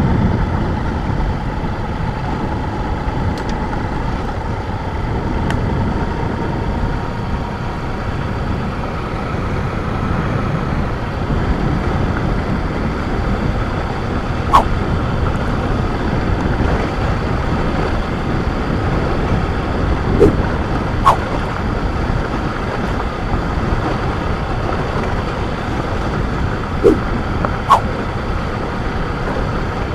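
Motorcycle riding along a road, its engine and road noise running steadily, with a few brief sharp knocks in the second half.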